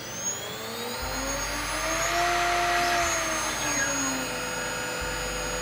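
CNC 6090 router running its skimming program: the spindle's high whine climbs in pitch and then holds steady, while the stepper motors whine up and down in pitch as the gantry moves. A 25 mm cutter skims the top of a firewood log, adding a rushing cutting noise that is loudest about two to three seconds in.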